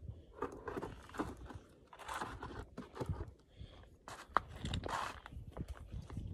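Irregular crunching and scraping of boots and a metal detector's coil on dry, loose dirt and gravel, with a brief sharper knock about four seconds in.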